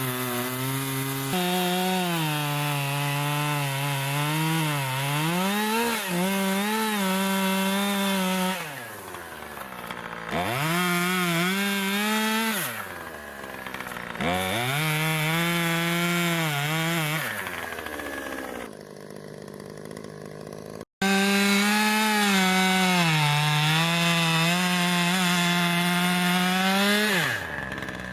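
Small two-stroke chainsaw cutting into a white oak trunk, held near full throttle with its pitch sagging and recovering under load. It drops back toward idle three times, and the sound breaks off for an instant about two-thirds through. It then runs at steady high revs before easing off near the end.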